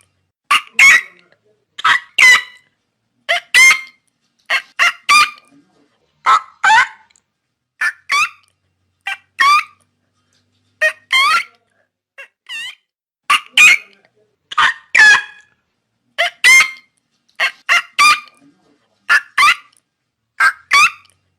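Pelicans calling: short, pitched calls, mostly in pairs, repeating every second and a half or so with silent gaps between, one pair fainter about two-thirds of the way in.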